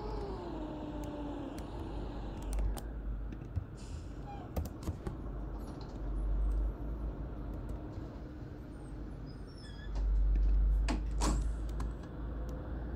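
Mercedes-Benz OC500LE bus on the move: a whine falling in pitch in the first second or so as it slows, then a steady low rumble with scattered rattles and clicks and a few heavier low thumps, the longest about ten seconds in.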